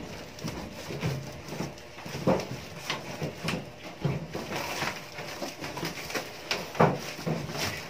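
Rustling, scraping and irregular knocks of cardboard packaging and a boxed gas oven being handled during unpacking, the loudest knock about seven seconds in.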